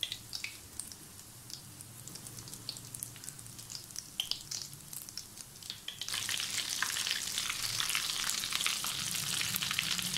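Breaded potato cheese sticks deep-frying in hot oil: sparse crackles and pops at first, then from about six seconds in a much louder, dense sizzle.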